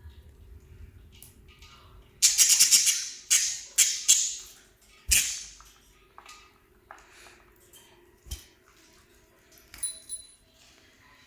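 Pet lovebirds and budgerigars moving in a cage: several loud bursts of fluttering, rattling noise about two seconds in, each dying away, followed by a few fainter clicks and a short high chirp near the end.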